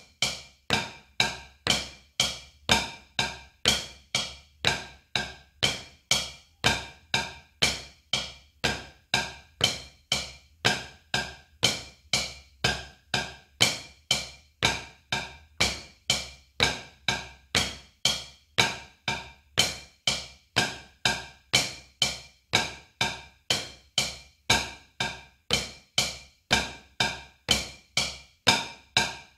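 Wooden drumsticks striking a rubber practice pad in a steady double-stroke pattern (right, right, left, left), with sharp, even taps about two a second.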